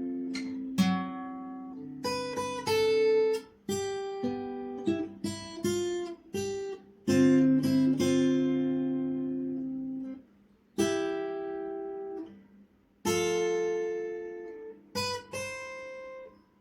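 Solo acoustic guitar playing a slow melody: plucked notes and chords that ring out and fade, with short breaks between phrases about two-thirds of the way through.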